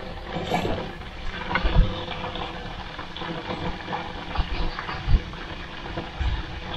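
Water splashing and sloshing, with irregular low thumps and a few short knocks.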